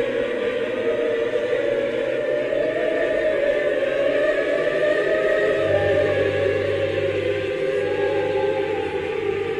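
Background music of long held chords that slowly shift in pitch; a low steady drone comes in a little over halfway through.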